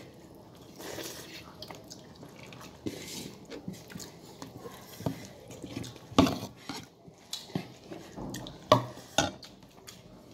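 Dishes and utensils clinking and knocking now and then during a meal, the loudest knocks about six seconds in and twice near nine seconds.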